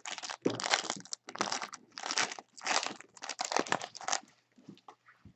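Trading-card packaging crinkling as basketball cards are handled, in a string of short rustling bursts about every half second.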